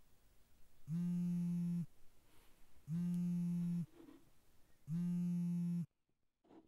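Smartphone vibrating on a wooden nightstand with an incoming call: three steady buzzes about a second long, two seconds apart, with a fourth starting near the end.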